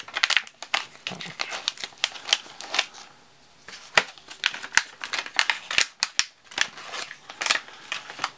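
Crinkling and rustling of a resealable plastic card pouch being handled while a stack of playing cards is pulled out of it, in a run of short, sharp crackles with a brief pause partway through.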